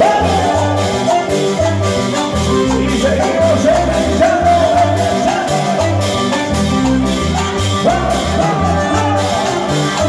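Tropical chamamé dance music played loud by a live band: a steady bass beat under a lead melody line that bends in pitch.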